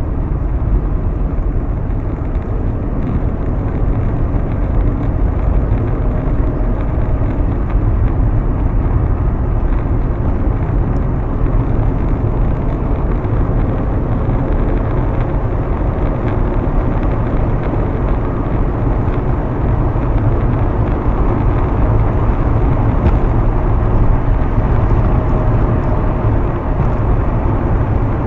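Steady road noise of a car cruising at highway speed, engine and tyre rumble heard inside the cabin.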